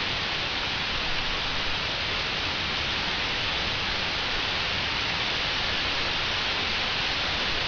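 Rain falling steadily in a thunderstorm: an even, unbroken hiss.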